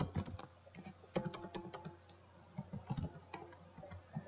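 Computer keyboard being typed on: irregular keystroke clicks with short pauses between them.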